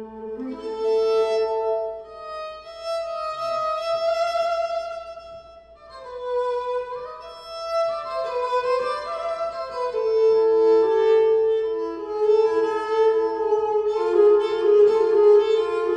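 Violin playing a slow milonga melody of long held notes that slide into one another, with a second sustained string line beneath it in the second half.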